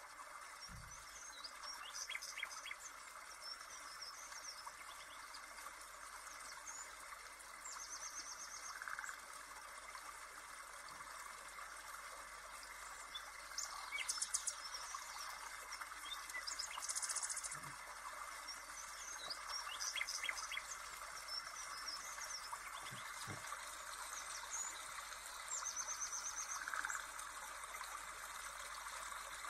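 Birds chirping, with short high trills now and then over a steady faint hiss. A few soft low knocks come through, about a second in and twice later.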